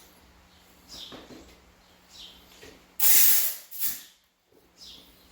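Compressed air from a blow gun, a loud half-second blast about three seconds in and a shorter puff just after, blowing brake dust out of the rear hub and brake assembly.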